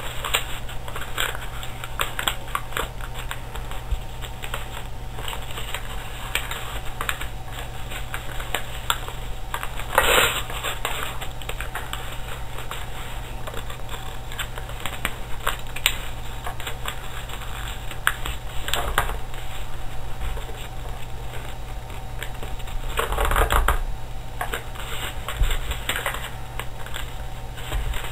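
A sheet of paper being folded and creased by hand on a table: irregular crackling and rustling with light clicks, louder crinkling about ten seconds in and again near twenty-three seconds in, over a steady low hum.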